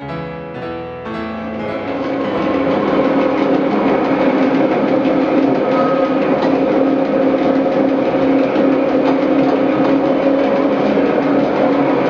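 The last notes of piano music fade in the first second or two. Then the steady running noise of the Lauterbrunnen–Mürren railway's electric railcar takes over: a loud, even rumble with a constant hum held at two pitches.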